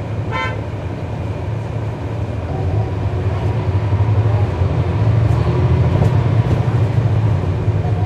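Cummins ISL9 inline-six diesel engine of a NABI 40-SFW transit bus heard from on board, a steady low drone that grows louder about two and a half seconds in. A brief high beep sounds about half a second in.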